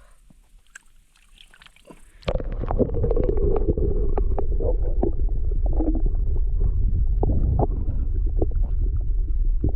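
Muffled underwater rumble and gurgling with scattered clicks, the sound of a microphone dipped into lake water, cutting in suddenly about two seconds in.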